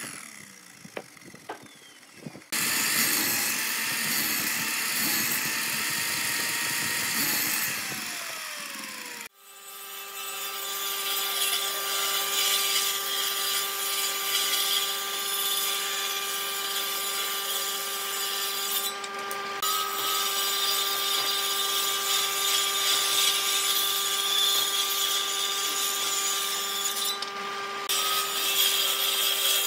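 Electric miter saw cutting through a pine board, then spinning down with a falling whine. Then a table saw runs steadily with a constant motor hum as wooden blocks are fed through the blade.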